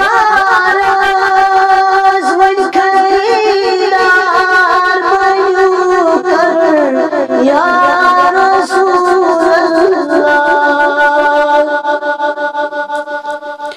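A man's solo voice singing a Kashmiri devotional naat (salaam) in long, ornamented held notes that slide between pitches. Over the last few seconds the line settles into a steady held tone that pulses in loudness.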